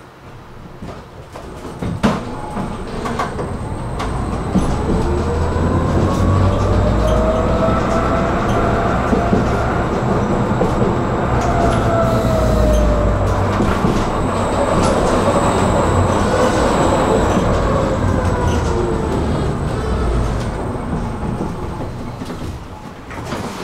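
Electric tram pulling away and running on its rails: the traction motors whine up in pitch as it gathers speed, over a deep rumble of wheels with clicks at rail joints. Later the whine falls away as it slows.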